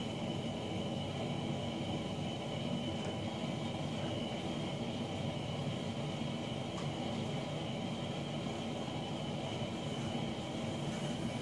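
Heater running: a steady rushing noise with a thin, high, steady whine through it.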